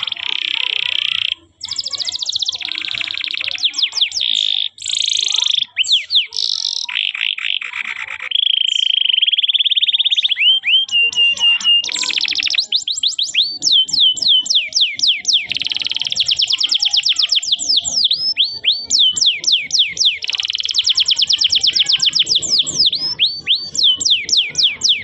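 Canary singing a long, unbroken song of rapid trills and rolls. It switches between buzzy rattling rolls, a steady held roll, and runs of quick down-slurred whistled notes.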